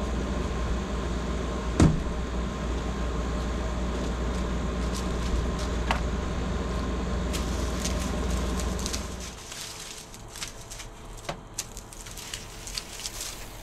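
A steady low mechanical hum with a couple of sharp knocks, which stops about nine seconds in. After it, quick clicks and snips with rustling as hand pruners trim the stalks and roots off cured onions.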